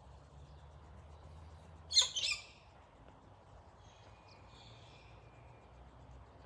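Garden birds calling: a loud, short two-part call about two seconds in, then softer high chirps a couple of seconds later, over a low steady background rumble.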